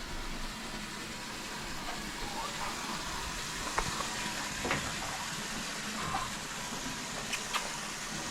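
Water running steadily in an even hiss, filling a bowl with drinking water for the chickens, with a few faint clicks.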